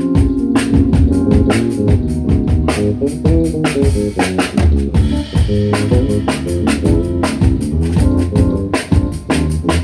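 A live fusion band playing: a busy drum kit with guitar and bass.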